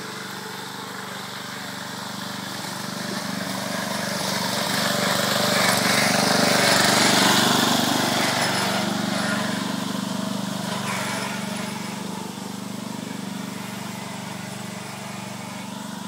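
Lawn mower engine running steadily, growing louder to a peak about halfway through, then fading again.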